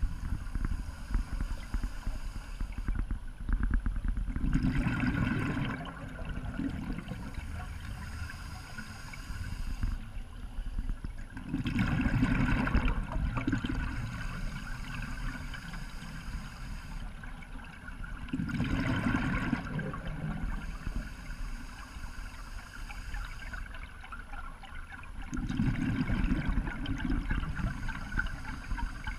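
Scuba diver breathing underwater through an open-circuit regulator: a hiss on each inhale, then a burst of exhaled bubbles gurgling, about once every six to seven seconds, four breaths in all.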